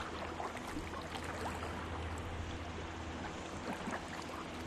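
Water lapping and trickling gently around a kayak, a steady low wash with small faint splashes.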